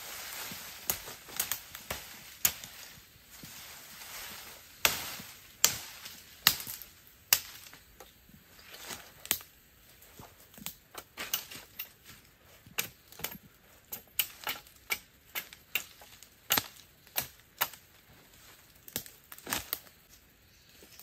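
Machete blade chopping at a thin wooden pole while trimming it, dozens of sharp strikes at an uneven pace, the loudest about five to seven seconds in.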